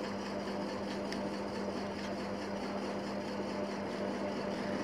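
Steady low background hum on one unchanging pitch, over a faint even hiss.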